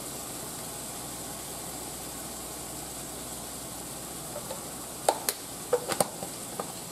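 Steady sizzling of seasoned meat frying in a skillet. A few sharp clicks come in the last two seconds as a spice jar is handled over the pan.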